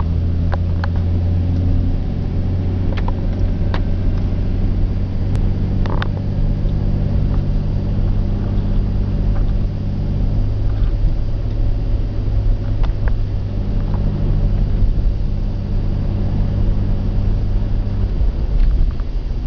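Car engine and road noise heard from inside the cabin while driving slowly: a steady low hum that shifts in pitch a few times as the speed changes, with a few faint clicks.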